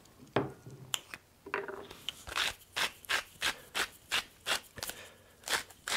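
Wooden spice mill being twisted by hand, grinding in short rasping strokes at about three a second from about two seconds in. Before that come a few light knocks as the mills are handled.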